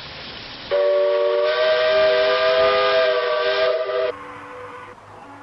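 Ship's whistle sounding one long blast of three tones at once, a chord, starting under a second in and cutting off suddenly after about three and a half seconds. A quieter, lower steady tone follows.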